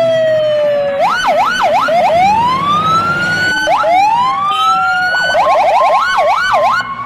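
Electronic police siren cycling through patterns: a slowly falling tone, then quick up-and-down wails, long rising sweeps, and a rapid yelp near the end.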